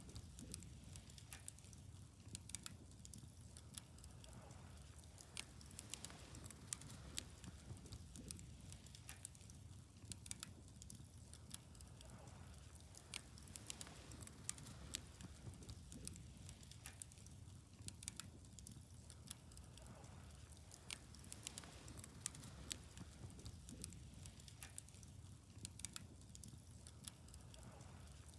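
Wood fire burning faintly, crackling with many small, irregular pops over a low steady hiss of the flames.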